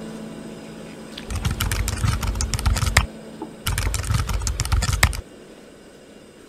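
Keyboard typing sound effect: two runs of rapid key clicks, each about a second and a half long, with a short pause between.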